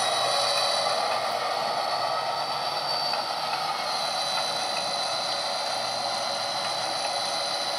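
Sound-equipped HO scale model diesel locomotive under way: its sound decoder plays a diesel engine running steadily through the small onboard speaker. The sound is thin, with little deep bass and a faint high whine.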